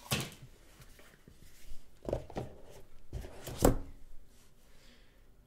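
Handling knocks from a cardboard phone box being closed and set down on a wooden table: a handful of short knocks and thuds, the loudest about three and a half seconds in.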